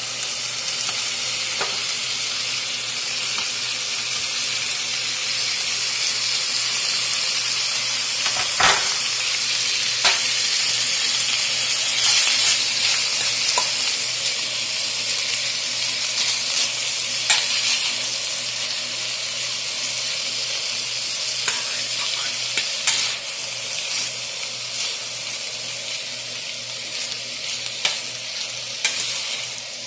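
Sliced bell peppers and red onion sizzling steadily in hot oil in a steel pan with browned chicken pieces, being stir-fried. A utensil knocks and scrapes against the pan now and then, loudest about nine seconds in.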